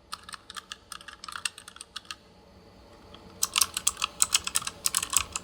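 ASUS TUF Gaming K7 keyboard's optical-mechanical switches clicking under fast typing, in two quick runs of keystrokes about a second apart, the second run louder.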